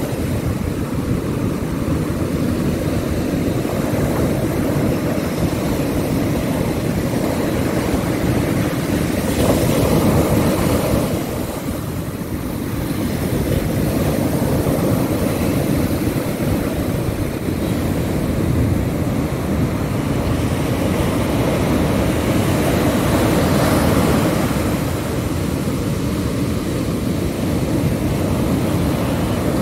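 Ocean surf breaking on a beach: a steady, noisy rumble that swells about a third of the way in and again near the end.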